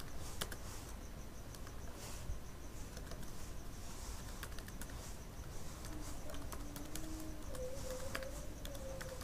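Typing on a computer keyboard: scattered, fairly quiet key clicks at an uneven pace.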